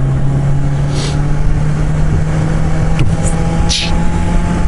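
Motorcycle engine running at a steady speed, a constant low drone that rises slightly in pitch about three seconds in. Two short rushes of hiss come over it.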